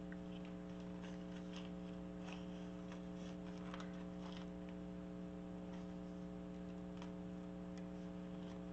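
Steady electrical hum with a few faint, scattered light ticks.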